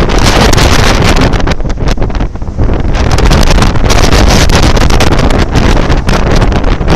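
Loud wind buffeting the microphone from a moving vehicle, with the vehicle's low road rumble underneath; the level flickers unevenly throughout.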